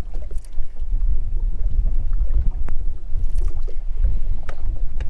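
Wind buffeting the microphone as a steady low rumble, with scattered short slaps and knocks of choppy waves against the boat's hull.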